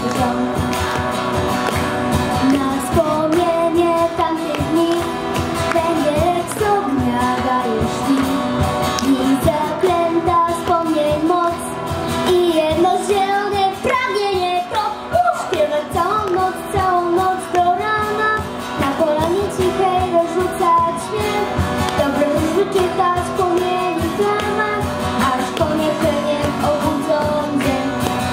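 A young girl singing a Polish scouting song into a microphone over instrumental accompaniment with a steady beat.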